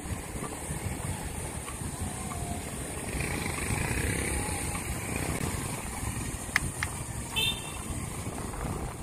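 Street traffic rumble and wind on the microphone heard from a moving bicycle, with a couple of sharp clicks about six and a half seconds in and a short high beep about a second later.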